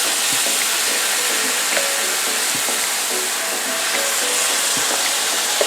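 Chicken thighs sizzling in hot melted butter in a pot, a steady hiss with scattered small pops and crackles.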